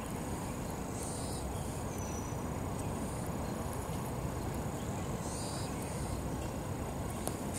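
Steady outdoor background noise, a low even rumble, with a few faint high chirps about a second, two seconds and five seconds in.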